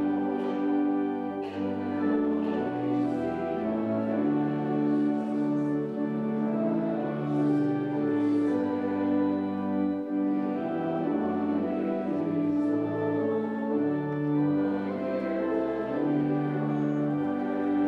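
Church pipe organ playing slow, sustained chords that change every second or two.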